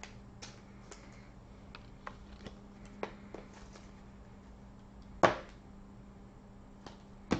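Light ticks and taps of a paper card and a rigid plastic toploader being handled as the card is slid into the holder, with one sharper click about five seconds in.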